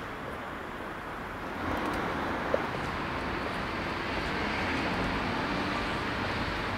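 Steady city street ambience, a wash of traffic noise that grows a little louder about a second and a half in. A single short, sharp blip stands out shortly after.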